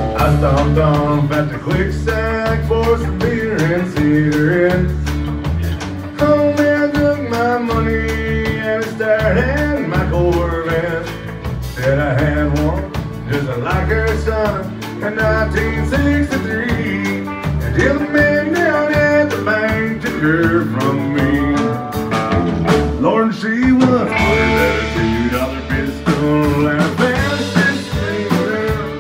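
Live country band playing a song: fiddle, acoustic and electric guitars, bass guitar and drum kit.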